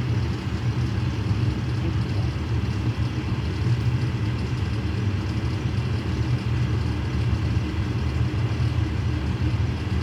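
Fire truck's diesel engine idling steadily: a continuous low rumble.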